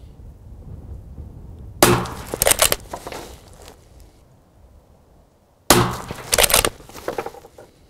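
Two suppressed rifle shots from a Sig Cross bolt-action rifle chambered in .277 Sig Fury, about four seconds apart. Each shot is followed within a second by a quick series of short clacks as the bolt is worked for the next round.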